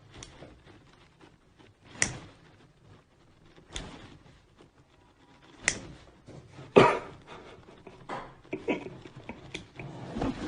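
A series of sharp knocks and thuds, roughly one every two seconds with the loudest about seven seconds in, then a cluster of smaller knocks over faint room noise near the end.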